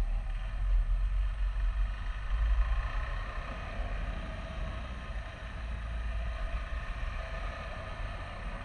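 KTM 390 Adventure's single-cylinder engine running steadily while riding, at an even pitch, with a low wind rumble on the microphone underneath.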